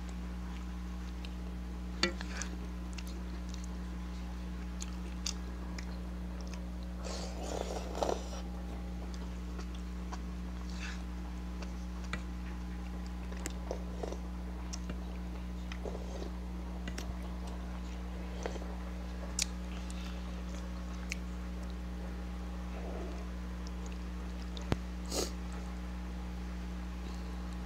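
Close-up eating sounds: chewing and biting spicy noodles, with scattered sharp clicks and taps over a steady low hum; a busier burst of chewing noise comes about seven seconds in.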